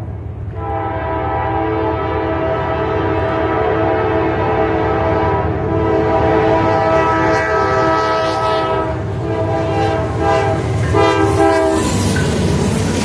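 Norfolk Southern locomotive's air horn sounding a long chord of several notes at once, with a short break about nine seconds in. It cuts off near the end, leaving the rumble of the passing train.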